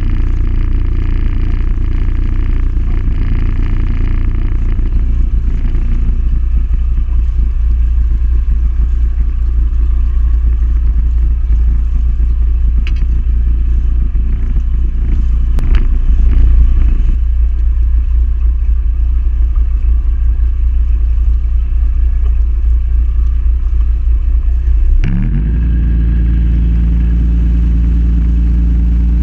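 A RIB's outboard motor running at low speed with a steady low rumble, with a couple of sharp clicks midway. Near the end the engine pitch rises and holds at a higher steady tone as it speeds up.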